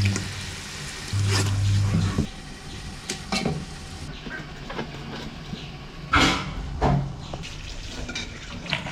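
Food sizzling as it fries in a pot while a spoon stirs it and knocks against the pot several times, loudest about six seconds in. A low hum runs through the first two seconds.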